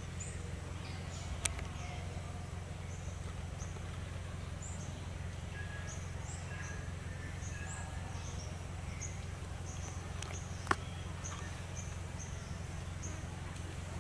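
Outdoor ambience: short high-pitched chirps repeating every half second to a second over a steady low hum, with two sharp clicks, one near the start and one about three-quarters of the way through.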